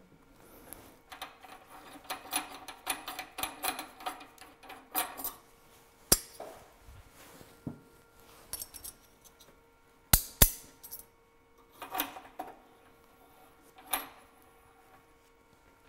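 Metal collet-chuck parts handled while a collet is swapped: a rattle of small metal clinks for the first five seconds or so, then a few separate sharp clicks and clinks, over a faint steady hum.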